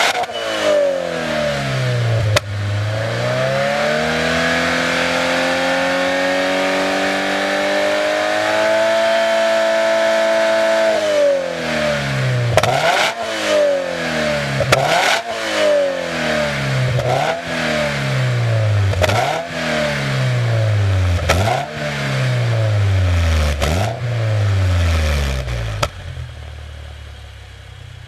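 Toyota GR86/Subaru BRZ 2.4-litre flat-four engine running through a Kakimoto Regu.06&R aftermarket exhaust, being revved. The revs climb slowly and are held high for a couple of seconds, drop back, then come six quick throttle blips about two seconds apart before the engine settles and fades out near the end.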